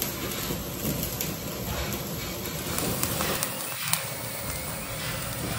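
Gas stove burner flame hissing steadily under a wire roasting grill, with a few light clicks of metal tongs on the grill.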